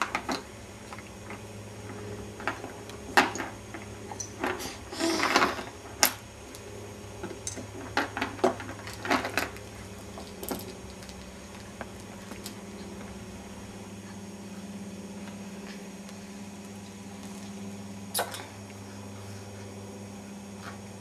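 Scattered clicks and knocks of a baby handling the plastic toys on an exersaucer, busiest in the first half, with a brief rustle about five seconds in and a steady low hum beneath.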